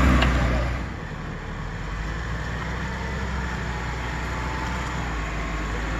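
Jeep Wrangler engines crawling over rocks: a Wrangler TJ's 4.0-litre straight-six runs loud for about the first second, then the sound drops to the steady, quieter engine hum of a Wrangler JK working slowly over the rocks.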